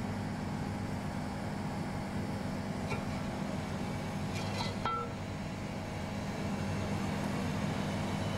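Steady low hum of workshop machinery, with a few light clicks of metal parts being handled about three and five seconds in.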